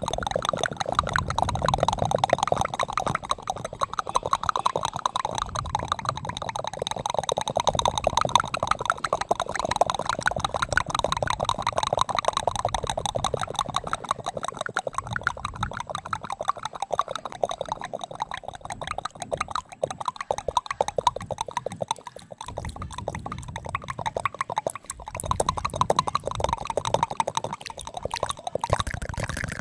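Close-miked ASMR mouth sounds: dense, rapid wet clicks and smacks of lips and tongue right against a foam-covered microphone, with a couple of brief pauses near the end.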